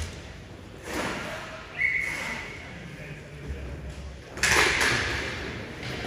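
Ice hockey play echoing in an indoor rink: scraping and knocks of skates and sticks on the ice, then a loud slam about four and a half seconds in that rings on for about a second.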